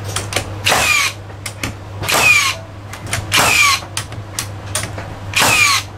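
Hitachi (HiKOKI) NR1890DBCL 18 V brushless cordless framing nailer driving nails into timber blocks, four shots, each a sharp firing clap with a short falling whine from the tool. Lighter clicks and knocks come between the shots as the nailer is placed and handled.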